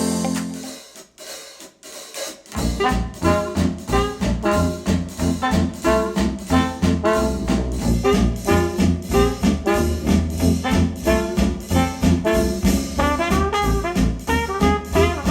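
Recorded music played over KEF LS50 Meta bookshelf speakers: one track ends in the first second, then after a short lull a retro jazz tune with brass and a drum kit starts about two and a half seconds in, with a steady beat.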